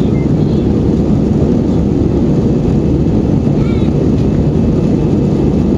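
Airbus A320 airliner in flight, a steady loud low rumble of engine and airflow noise as heard inside the cabin, with faint voices in the background.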